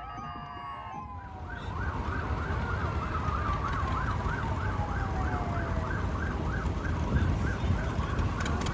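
Emergency vehicle sirens sounding. From about a second in, one siren runs a rapid yelp of about three to four sweeps a second while another wail slowly falls in pitch, over a low engine rumble. The sound gets louder a little later.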